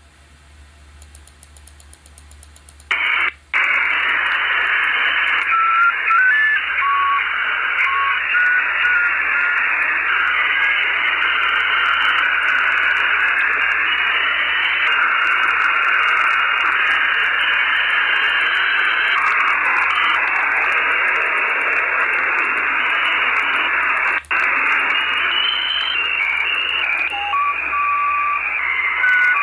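Radio receiver static while scanning frequencies. A loud, thin hiss cuts in about three seconds in after a quieter stretch, with short beeping tones that jump up and down in pitch here and there and one brief cut-out about five seconds before the end.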